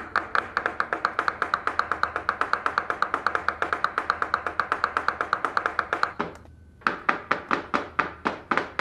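Kitchen knife chopping rapidly on a cutting board, an even run of about seven strokes a second that pauses briefly about six seconds in and then resumes.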